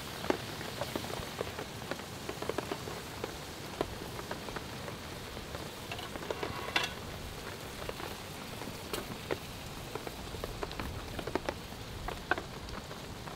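Food sizzling in a pan over a wood-fired firebox stove: a steady hiss scattered with small pops and crackles.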